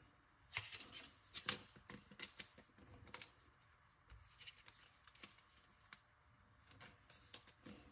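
Faint clicks and slides of trading cards being handled and flipped through one after another, a scattered run of small snaps, busiest in the first few seconds and again near the end.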